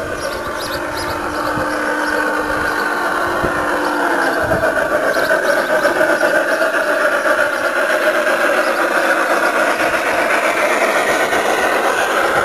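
USAT Big Boy large-scale model train running past on garden track: the locomotive and its passenger cars' wheels and running gear. It makes a steady rolling sound with wavering whining tones and gets louder as the train comes near.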